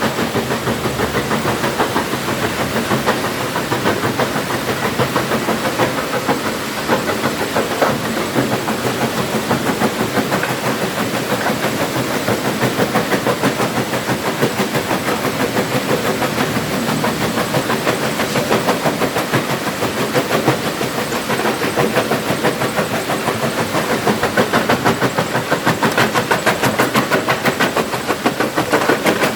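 Stone-crushing machine running and breaking rock: a loud, continuous clattering rumble with a fast, even pulse.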